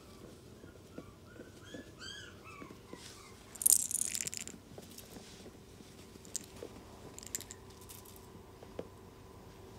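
Tiny Chihuahua puppy making a run of short, high squeaks while chewing and playing, followed about four seconds in by a loud brief rustle and then scattered small clicks and taps.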